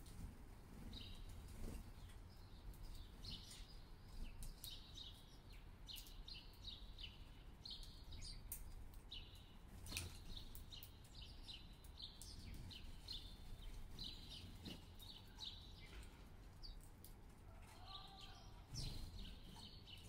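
Sparrows chirping busily in short repeated chirps at a bird feeder, over a steady low rumble of city noise.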